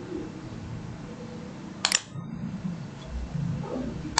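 Computer mouse clicking: a quick double click about two seconds in and another near the end, over a faint steady room hum.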